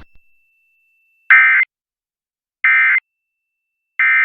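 Emergency Alert System End of Message signal: three short bursts of SAME digital data tones, two-tone frequency-shift keying near 1.5 and 2 kHz, each about a third of a second long and about a second and a half apart. The signal marks the end of the alert.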